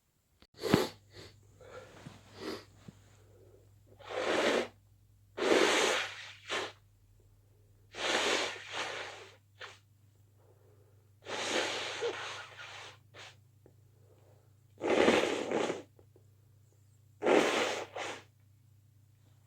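A person's held-back, quiet sneezes, about half a dozen separate bursts a couple of seconds apart, with breathy intakes between them.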